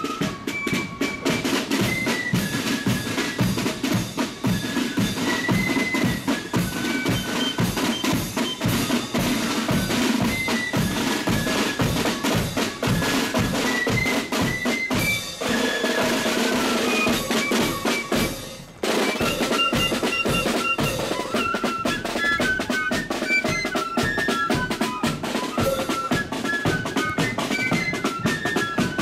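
Marching corps of drums playing a march: rattling side drums and a steady bass drum beat under a high flute melody. The sound breaks off and comes back abruptly about nineteen seconds in.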